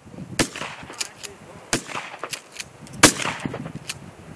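Shotgun shots: three sharp reports, each with a short echoing tail, the loudest about three seconds in, with lighter clicks between them.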